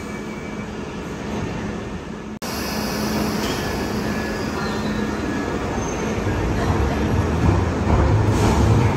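London Underground Piccadilly line train (1973 Stock) rumbling in a tube station, with faint high wheel squeals. The rumble grows louder from about six seconds in as the train draws nearer. The sound cuts out for an instant about two and a half seconds in.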